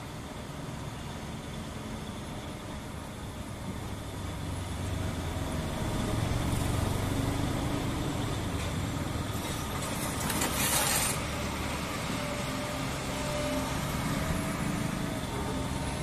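Volvo crawler excavator's diesel engine running as the machine digs, its rumble growing louder about six seconds in as it works harder. A short hissing rush about ten seconds in.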